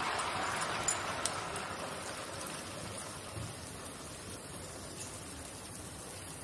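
Jalebi batter frying in hot ghee in a shallow pan: a steady sizzle of bubbling fat that slowly eases off. A sharp click about a second in.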